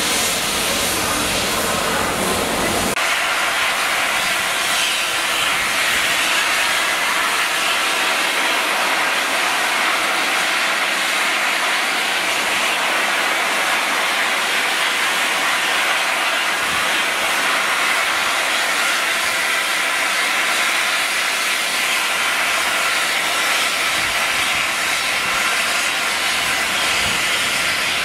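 Steam locomotive 35028 Clan Line, a rebuilt Bulleid Merchant Navy class Pacific, standing still with steam escaping in a steady loud hiss. A low rumble under the hiss drops away about three seconds in.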